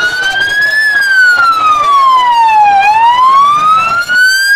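Vehicle siren wailing, its pitch sweeping slowly up and down: it peaks about a second in, falls for two seconds, then climbs again toward the end. Crowd noise underneath.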